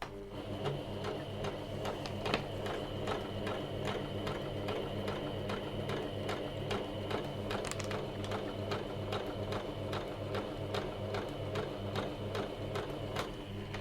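Janome MyExcel 23X electric sewing machine running a test stitch: a steady motor whine under an even clatter of the needle mechanism, about two to three strokes a second, starting and stopping abruptly. The owner says the machine is not running smoothly and does not sound healthy.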